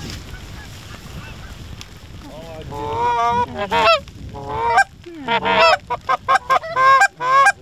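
Canada goose honks and clucks, loud and in quick succession, starting about two and a half seconds in, over a low hiss of wind.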